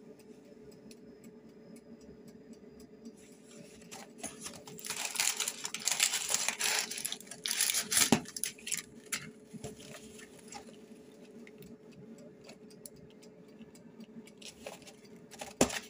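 Paper and cardboard rustling and crackling for a few seconds, with scattered clicks: a cardboard box of greaseproof paper lunch bags being handled. A steady low hum runs underneath.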